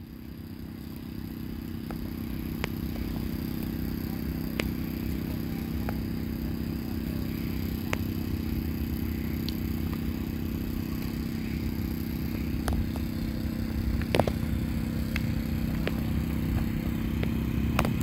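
Engine idling steadily, a low even hum with a few faint clicks over it.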